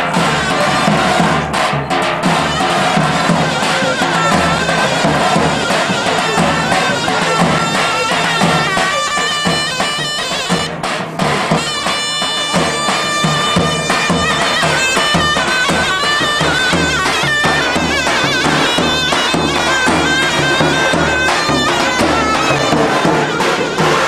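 Davul drum and zurna playing folk dance music: the drum beats a steady rhythm under the zurna's shrill, sustained reed melody, with crowd voices in the background.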